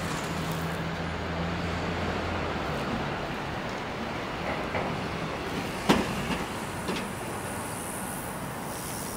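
City street traffic noise: a steady wash of vehicles, with a low engine hum for the first couple of seconds and a single sharp knock about six seconds in.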